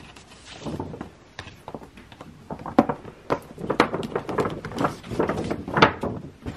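A large stiff paper shopping bag being opened and rummaged in by hand, rustling and crinkling in quick irregular crackles, with a few sharper knocks as the box inside is grabbed and lifted.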